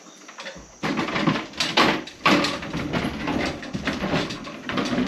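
Wooden table being carried in and set down on a wooden floor, with knocks, bumps and scraping of wood. It starts about a second in.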